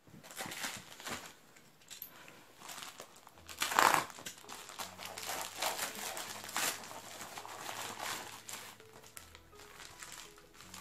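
Plastic packaging crinkling and rustling as a tape-wrapped, bubble-wrapped parcel is handled and unwrapped by hand, in irregular bursts, with the loudest crackle about four seconds in.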